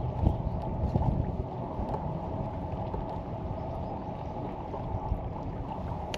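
Steady low rumble of wind and water noise around a kayak on the lake, louder in the first two seconds.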